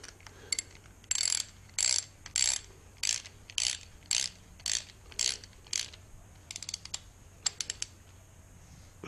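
Hand ratchet wrench tightening the timing chain tensioner's bolts. About ten short ratcheting strokes come roughly two a second, then a few quick light clicks near the end.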